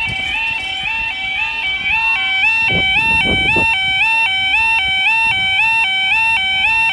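Level crossing warning alarm sounding as the crossing closes: a loud two-tone yodel that switches between two pitches about three times a second and keeps going without a break.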